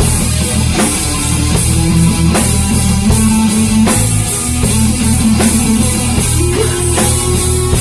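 Band music with guitar and a drum kit playing a steady rock groove, without vocals.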